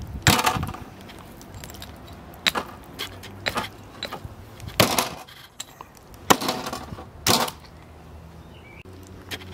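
A knife cutting and breaking through the head and gill bones of a large fish: a series of sharp cracks and crunches, about six in all, with short gaps of quiet between them.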